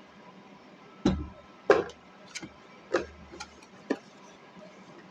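Handling noise: about six sharp clicks and taps at irregular spacing over a quiet room background.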